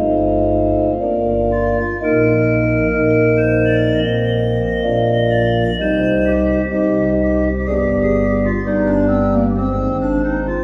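Church pipe organ playing a slow chorale in several voices: two accompanying voices in the left hand, a bass line on the pedals and the chorale melody on top, standing out as the loudest part. Held chords change about once a second over deep pedal notes.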